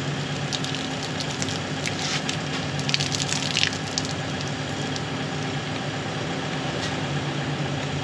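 Water running from a hose into a camper van's fresh-water tank filler, spattering and dripping onto the concrete, over a steady idling-engine hum. The spattering is denser between about two and four seconds in.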